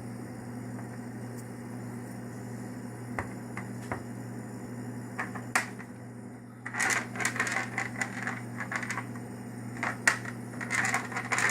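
Light, scattered clicks, then bursts of clattering from small hard objects being handled, over a steady low hum.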